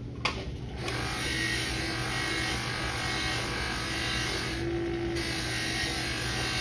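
Electric buffing motor running with a steady hum while a brass trombone bell is pressed against its spinning buffing wheel, giving a loud rushing hiss of wheel on metal that starts about a second in and dips briefly about five seconds in.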